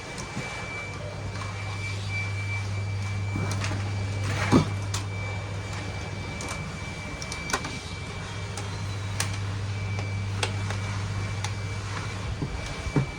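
Scattered sharp clicks and knocks of laptop parts being handled and refitted during reassembly. The loudest knock comes about four and a half seconds in. A steady low hum runs underneath.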